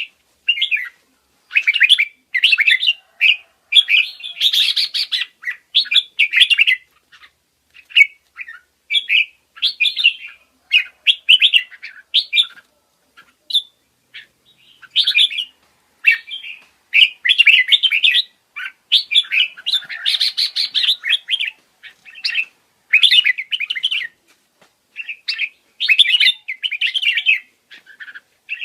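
Forpus parrotlets chirping in quick, dense runs of high calls, each run lasting a second or two with short pauses between.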